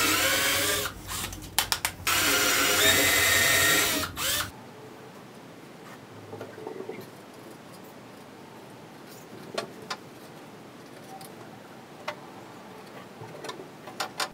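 Electric drill running under load in two spells, the first about a second and the second about two seconds, with quick trigger blips between and after; it stops about four and a half seconds in. A few light knocks and clicks of handling follow.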